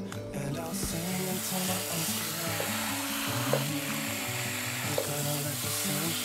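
Water spraying from a garden hose watering wand onto potted plants and their soil: a steady hiss that starts about a second in.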